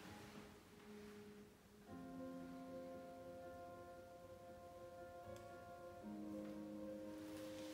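Soft background music: slow, sustained chords, each held for several seconds, changing about two seconds in and again about six seconds in.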